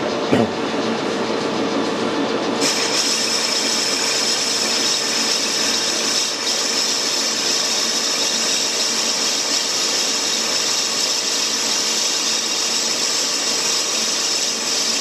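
Metal lathe starting up and turning a Tufnol (phenolic fibre laminate) gear blank between centres. After a couple of knocks and the steady hum of the lathe's drive, the tool bites about two and a half seconds in, and a dry, hissing cut runs on steadily over the machine.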